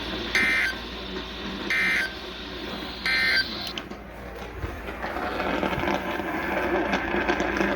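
Emergency Alert System end-of-message data bursts: three short, harsh digital warbles about a second and a half apart, marking the end of the severe thunderstorm warning. From about five seconds in, a steady rough noise rises on the channel.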